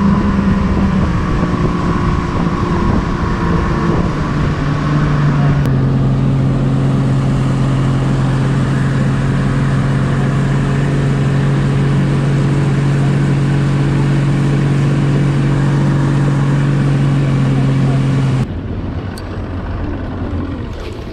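Engine running steadily under load with a loud rushing noise over it. Its pitch steps down twice, about four and six seconds in, then stays level until it breaks off near the end.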